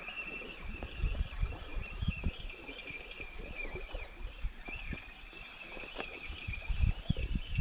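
Spinning reel on a surf-casting rod being cranked to retrieve line, a steady whir from the reel's gears that wavers with each turn of the handle. Wind buffets the microphone in low gusts, loudest near the end.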